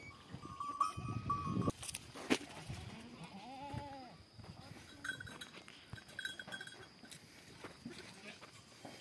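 A large Kangal-type shepherd dog chewing and crunching a cooked chicken carcass, the cracking loudest in the first couple of seconds. A goat bleats once a little before halfway.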